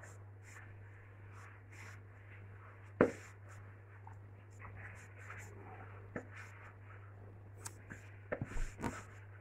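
Hands rubbing and squeezing flour, oil and water together into a dough in a plastic bowl: soft, faint scraping and rustling. There is a single sharp knock about three seconds in and a few more near the end, over a steady low hum.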